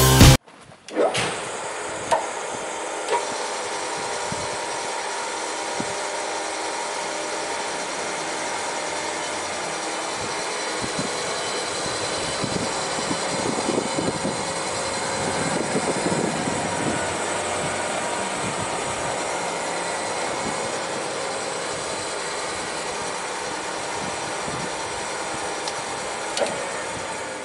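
LÖWER tenoning machine with its saw unit running with no wood being fed: a steady machine sound with several even tones held throughout. Sharp clicks sound about two and three seconds in, and another comes near the end.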